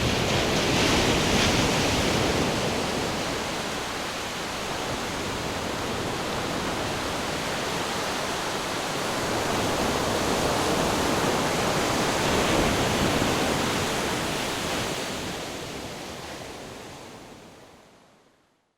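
Ocean waves breaking and washing onto shore in a steady rush, swelling twice, then fading out to silence near the end.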